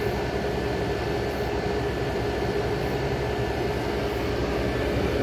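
A 35-year-old General Electric Carry Cool air conditioner running steadily: a constant drone with a steady, even tone, unchanging throughout.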